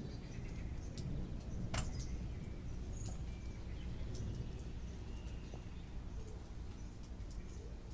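Low rumble of distant thunder, slowly fading, with birds chirping and a few sharp clicks over it.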